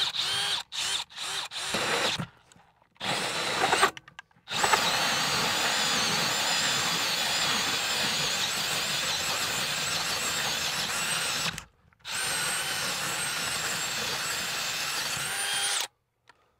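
Cordless drill driving a hole saw through OSB wall sheathing. It starts with several short trigger bursts to seat the cut, then runs steadily for about seven seconds, pauses briefly, and runs about four seconds more before stopping suddenly.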